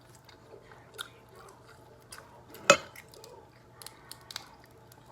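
Close-up eating sounds from crab legs: scattered small clicks and chewing, with one sharp, loud crack about halfway through as a crab shell is broken.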